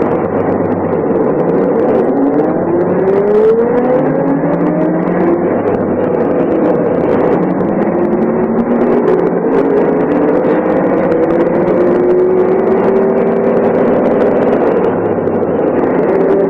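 MAN SL 202 city bus's diesel engine pulling the bus through the gears of its ZF manual gearbox. The engine note climbs from about two seconds in, falls back at a gear change around five to six seconds in, then climbs slowly again.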